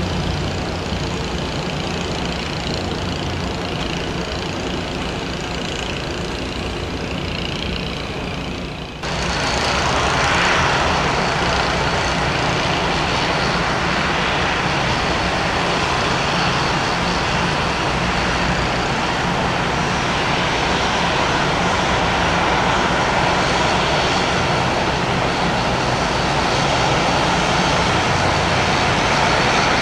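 Airliner jet engines running in a steady rushing hum. About nine seconds in the sound cuts abruptly to a louder stretch of the same steady engine noise.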